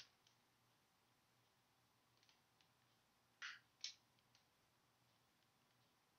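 Near silence with a faint low hum, broken about halfway through by two brief, soft rustles of a paper picture book being held up and moved.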